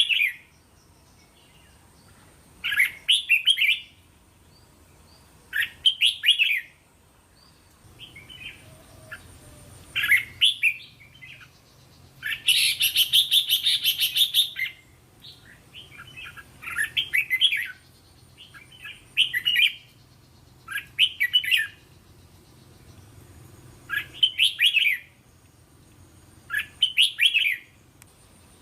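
Red-whiskered bulbul singing short, bright whistled phrases, one every two to three seconds. About halfway through comes one longer, harsher chattering burst.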